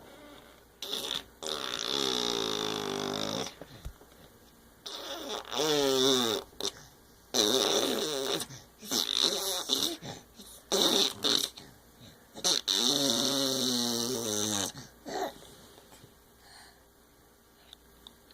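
Sleeping baby making a string of pitched, snore-like noises in her sleep, about eight in all, some long and falling in pitch, one wavering up and down.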